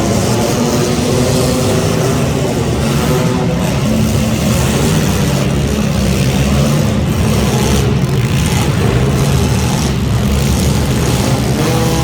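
Engines of front-wheel-drive hobo stock race cars running loud and steady, their pitch rising and falling with the throttle.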